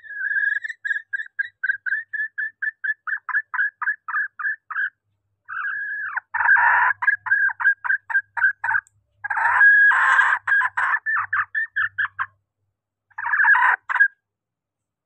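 Female junglefowl calling: runs of short, rapid clucking notes, about five a second, in four bouts with brief gaps, the later bouts louder and harsher. It is a hen's call used to draw in males.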